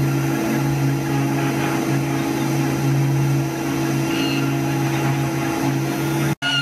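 3018 desktop CNC router's spindle running with an engraving bit cutting into wood: a steady motor hum and whine. The sound cuts out for an instant near the end.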